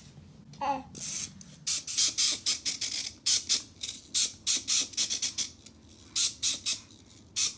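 Packaging crinkling and rustling in irregular short bursts, about two or three a second, as a toy is handled and unwrapped.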